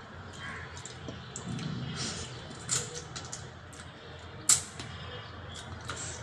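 Close-up eating sounds: soft wet mouth clicks while chewing, and fingers picking hilsa fish bones out of curry on a steel plate, with one sharp click about four and a half seconds in.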